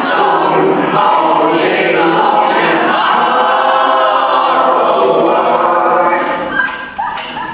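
Many overlapping voices singing and chanting together like a choir, layered and looped as in a music remix; the sound thins out briefly near the end.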